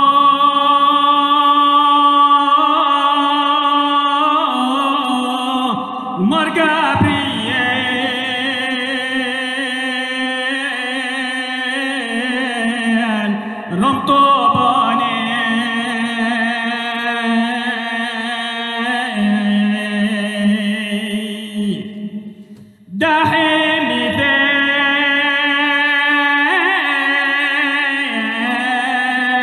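A male voice singing a Syriac Orthodox hymn (qolo) in long, held, ornamented phrases, with a short break for breath about three quarters of the way through before the next phrase begins.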